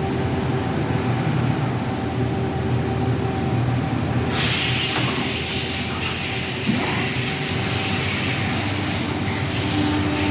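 Mazak Quick Turn Nexus 250-II CNC turning center running under power: a steady machine hum with a few held tones, joined about four seconds in by a high hiss.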